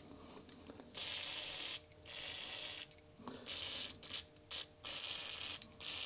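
Aerosol can of contact cleaner sprayed in about five short bursts of hiss, each lasting under a second, with short pauses between.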